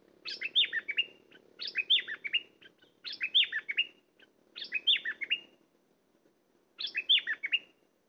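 A bulbul (merbah lekir) singing, repeating the same short phrase of quick falling notes five times, each about a second long with brief pauses between.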